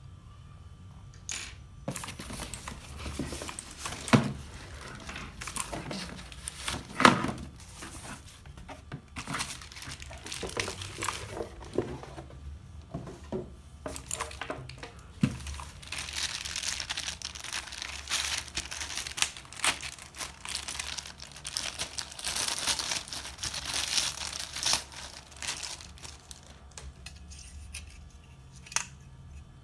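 Packaging being unwrapped and crinkled by hand in continuous crackly rustling, with two sharp knocks about 4 and 7 seconds in.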